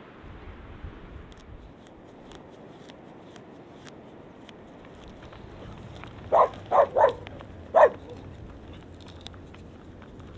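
A dog barking four times in quick succession about two-thirds of the way in. Faint clicks of horses' hooves walking on gravel run under it.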